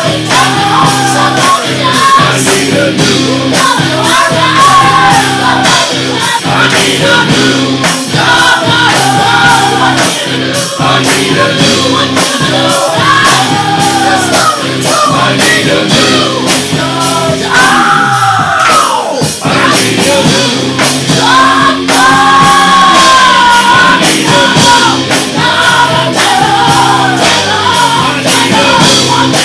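Hard rock song played loud, with a male voice singing and shouting over dense band backing and regular drum hits.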